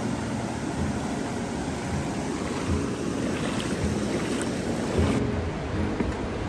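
Feet wading and sloshing through a shallow, ankle-deep creek, with a steady rush of water and wind noise. The sound changes character about five seconds in.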